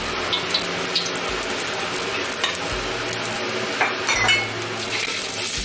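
Cooking oil heating in a hot wok: a steady sizzling hiss with scattered small pops, and a few light clicks against the pan about four seconds in.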